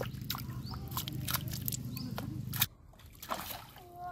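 A hooked fish thrashing and splashing at the water's surface, in quick irregular splashes. A steady low hum runs underneath and stops abruptly about two and a half seconds in.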